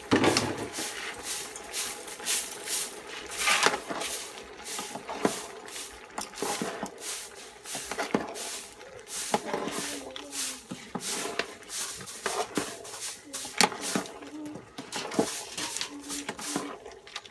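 Metal spoon stirring soup in a metal cooking pot, clinking and scraping against the pot in sharp, irregular knocks.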